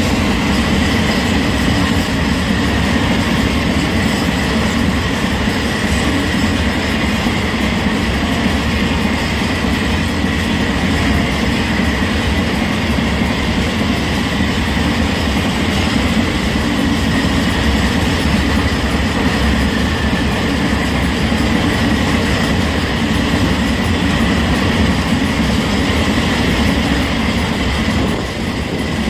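Covered hopper wagons of a long freight train rolling past close by: a steady rumble of steel wheels on the rails, with a steady high whine running through it.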